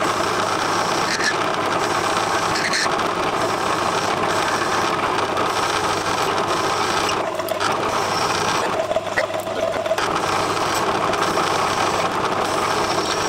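Metal lathe running under cut, its tool turning down a mild steel bar: a steady motor hum under the even noise of the cut.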